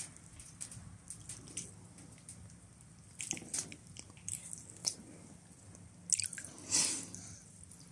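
Water dripping and lapping in a hot tub, with scattered small drips and splashes. A louder slosh comes near the end.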